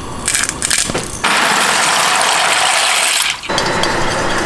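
Kitchen cooking sounds: a few sharp clicks, then a loud steady hiss lasting about two seconds that starts and stops suddenly. Near the end a wire whisk scrapes and ticks around a stainless-steel skillet of cream sauce.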